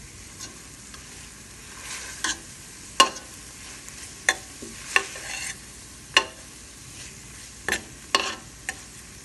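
Slotted metal spoon stirring and scraping ginger, garlic, green chili and curry leaves frying in oil in a stainless steel pot: sharp metal-on-metal clinks and scrapes roughly once a second over a steady sizzle.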